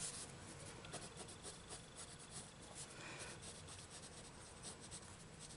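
Coloured pencil scratching softly across paper in quick repeated strokes, blending a periwinkle layer into darker blue.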